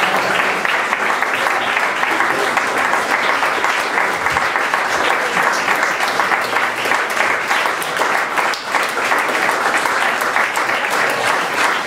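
Audience applauding steadily: dense, continuous hand clapping from a crowd, with some voices mixed in.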